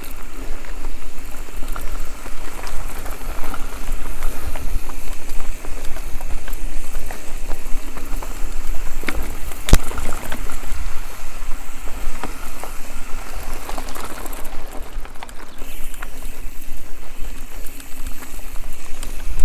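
Mountain bike riding over a dirt forest trail: steady tyre and trail noise with small rattles and clicks, heavy wind rumble on the microphone, and one sharp knock about halfway through.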